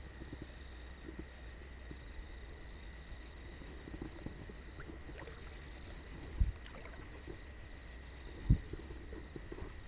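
Quiet open-air river ambience: a steady low rumble with faint, short high chirps like small birds. Two dull low thumps about six and a half and eight and a half seconds in are the loudest sounds.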